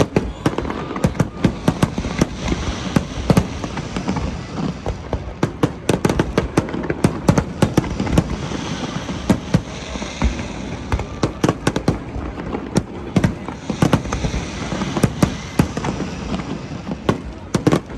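Fireworks display going off: a dense, irregular run of sharp bangs, several a second, with stretches of crackling hiss between them.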